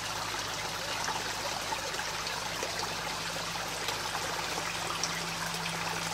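Shallow creek water trickling steadily over stones, with a few faint clicks.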